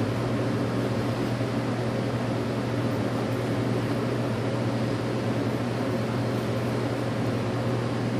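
Steady machinery hum with a low drone and fan-like rushing, unchanging throughout.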